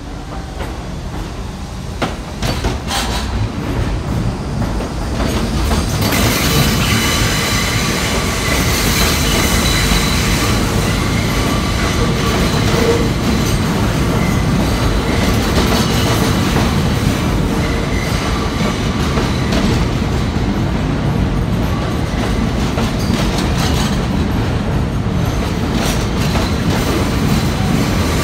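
New York City subway train pulling into the station and passing close by, with wheels and track rumbling and clattering and steady high squealing tones over them. It grows louder about six seconds in and then holds steady, with a few sharp knocks early in the approach.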